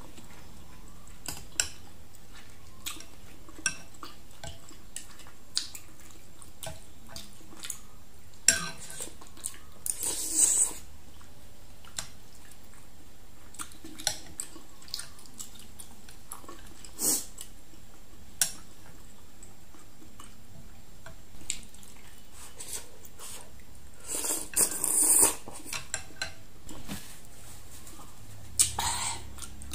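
Chopsticks and a metal spoon clicking and scraping against a glass bowl of noodle soup, with a few short noisy mouth sounds from eating chewy noodles.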